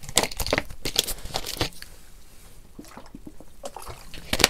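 A person drinking: small wet sips, swallows and mouth clicks, busiest in the first two seconds and again towards the end, with one sharper click just before the end.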